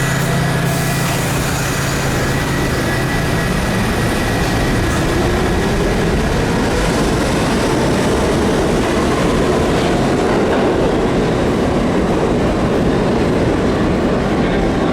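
R68 subway car running on the track with steady wheel and rail noise. A few seconds in, a motor whine starts rising in pitch as the train picks up speed.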